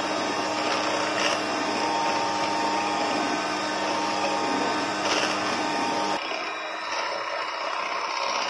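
Electric hand mixer running steadily, its beaters whipping a thick cream-cheese and cream mixture in a bowl. About six seconds in the sound changes abruptly and gets thinner, with less low hum, as the mixer keeps running.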